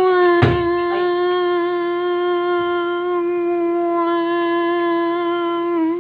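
A person humming one long, steady note with a slight waver, dipping a little in pitch before it cuts off. A single thump about half a second in.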